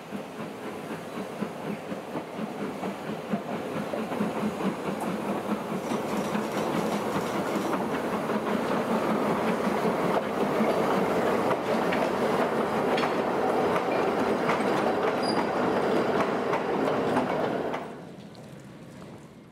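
Narrow-gauge steam train, a Beyer Peacock 2-4-0 tank engine with vintage wooden coaches, rolling slowly past close by, its wheels clacking rapidly over rail joints and pointwork. The sound grows louder as the train comes near, then drops away abruptly near the end.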